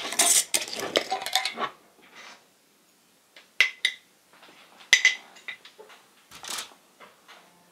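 Metal screw lid twisted off a glass mason jar: a dense, scratchy rattle of clicks lasting about a second and a half. Then two sharp, ringing glass clinks about a second apart as the jar is handled over a glass mixing bowl, and a softer rustle near the end.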